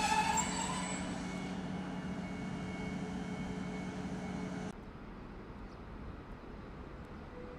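Passenger train running with a steady hum and a few held tones, slowly fading. The sound drops away abruptly a little under five seconds in, leaving a faint, even background.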